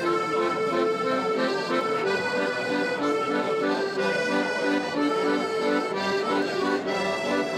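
Two piano accordions playing a tune together: a melody over short, evenly repeated lower notes.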